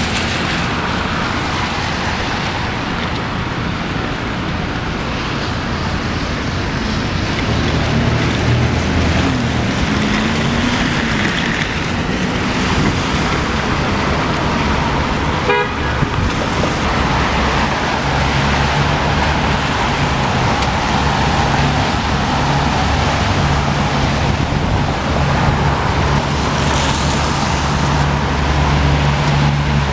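Downtown street traffic on wet pavement: a steady wash of tyre and engine noise. A vehicle's low engine hum holds steady through the second half, and a short high beep sounds near the end.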